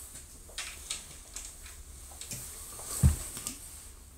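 A few faint clicks and taps from objects being handled close to the microphone, with a low thump about three seconds in.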